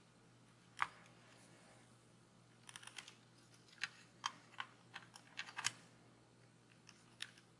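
Faint, scattered light clicks and taps of hands handling the phone and its screen-protector installation kit: a single click about a second in, then a dozen or so irregular taps through the middle and one more near the end.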